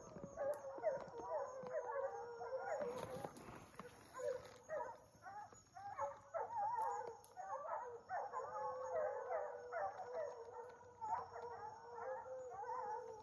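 A pack of foxhounds baying together: many overlapping, wavering howls.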